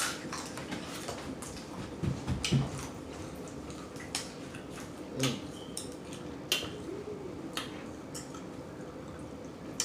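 A person eating blue crabs by hand: shell cracking and picking, with mouth smacking. It makes scattered sharp clicks about once a second, with a few soft thumps about two seconds in.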